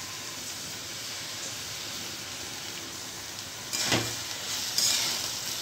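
Chopped banana stem and potato sizzling steadily in a kadai. About four seconds in, a spatula knocks and scrapes the pan and the sizzling flares up as a thin flour-and-water mix is stirred in.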